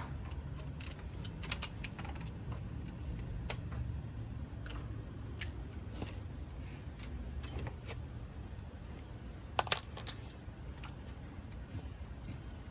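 Scattered metallic clicks and clinks of hand tools and sockets being handled on the engine while the water pump bolts are being worked loose, with a quick cluster of sharper clicks about ten seconds in, over a steady low hum.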